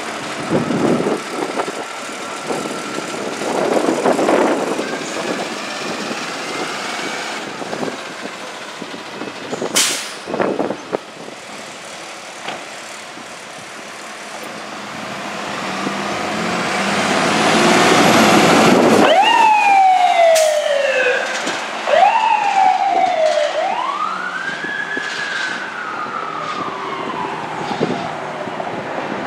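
Fire apparatus pulling away with its engine running, then its electronic siren comes on about two-thirds of the way in: a few quick falling sweeps, then a long rising-and-falling wail.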